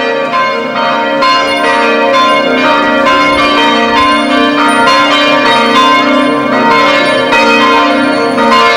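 Church bells ringing a full peal for a procession, a continuous run of overlapping strikes with long ringing tones.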